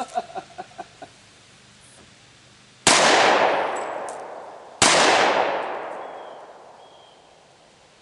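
Two pistol shots from an M1911A1 firing Doubletap .45 ACP +P hollow-point rounds, about two seconds apart, each followed by a long echo that fades over a couple of seconds.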